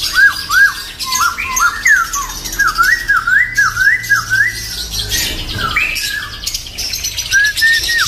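A caged bird calling in short, sharp rising-and-falling notes, given in quick runs of several notes with brief pauses, over a steady high chirping of many other small birds.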